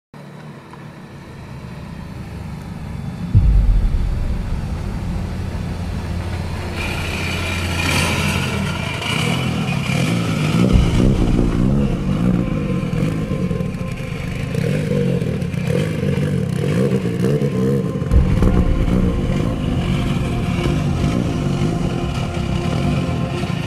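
Motorcycle engine noise, running and revving, fading up from silence, with a sudden low thump a few seconds in and two more later.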